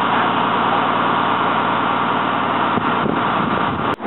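Steady mechanical running drone of a train standing at the platform, with no distinct clanks or horn; the sound cuts out abruptly near the end.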